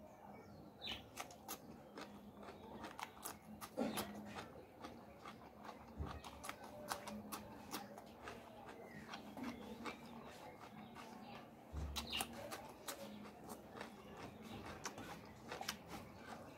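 Close-miked eating sounds of a person chewing curried meat and rice: wet mouth clicks and lip smacks coming thick and irregular, with two low thumps about six and twelve seconds in.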